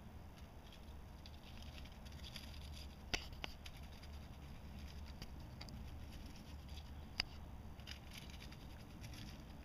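Faint rustling and pattering in dry oak leaves as a shrew scurries through them, with two sharp clicks, one about three seconds in and one about seven seconds in.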